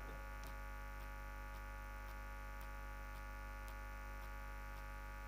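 Steady electrical mains hum, a buzz of many evenly spaced tones, with faint regular ticks about twice a second.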